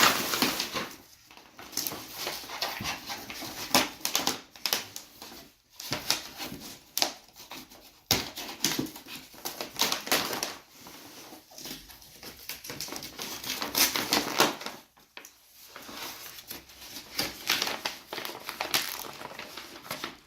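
Packaging being torn open and unwrapped by hand: paper and wrapping rustling and tearing, cardboard scraping, in irregular bursts with a few short pauses.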